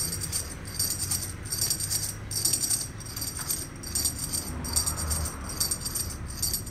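Rhythmic metallic jingling, a short burst about every two-thirds of a second.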